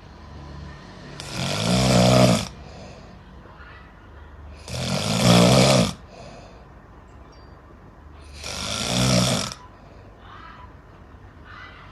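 Snoring: three loud snores about three and a half seconds apart, each about a second long, with softer breaths between them.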